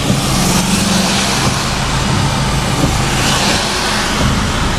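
Car driving on a rain-soaked road, heard from inside the car: tyres hissing on the wet surface over a steady engine hum. The hiss swells twice, about half a second in and again around three seconds in.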